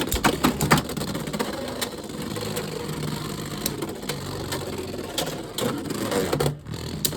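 Beyblade X spinning tops battling in a plastic stadium. Sharp clacks as they collide in the first second, then a steady whirring, rattling scrape as they spin and grind. It cuts off suddenly near the end.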